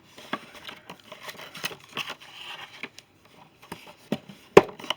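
A soldering iron kit's packaging being handled and opened by hand: scattered clicks and short bouts of rustling, with one sharp, louder click near the end.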